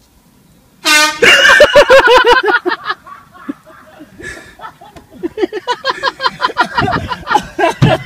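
An air horn blasts once, briefly, about a second in. Loud bursts of laughter follow, die down, and pick up again over the last few seconds.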